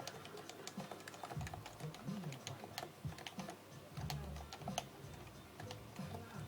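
Touch typing on a Happy Hacking Keyboard Professional 2, its Topre capacitive keys tapping in a quick, steady stream of keystrokes.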